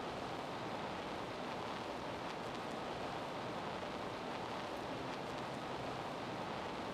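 Steady hiss-like noise with no distinct sounds.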